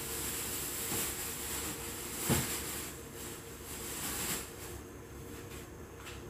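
Steady hiss of food cooking on the stove, from a pan of diced chicken gizzard bopis with a pot of soup behind it, over a faint steady hum. A single knock comes a little over two seconds in.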